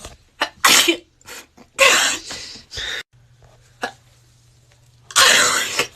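A person sneezing, set off by a cotton swab tickling the inside of the nose: several short sneezes and sharp breaths in quick succession in the first three seconds, then a louder, longer sneeze near the end.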